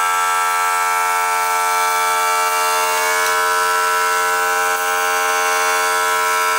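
A steady, continuous buzzing drone made of many held tones, even in loudness throughout; some of its higher tones shift a little about halfway through.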